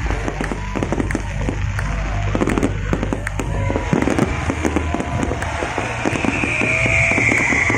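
Fireworks going off in a dense, rapid run of bangs and crackles, with whistling tones gliding up and down and a longer falling whistle near the end.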